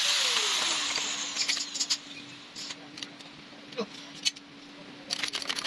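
A workshop power tool winds down in the first second and leaves a steady low hum. Light metal clicks and taps come and go as steel pieces are handled and set into a press die, most of them near the end.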